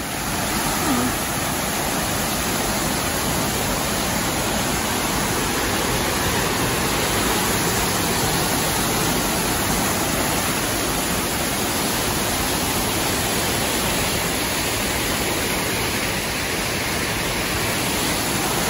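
Small woodland waterfall cascading down steep rock ledges: a steady, even rush of falling water.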